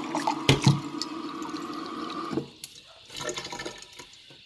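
A stream of tap water pours from a plastic tube fitting into a glass in a stainless steel sink, steady, then shuts off abruptly about two and a half seconds in. Two sharp knocks come about half a second in. After the water stops, the glass is briefly handled.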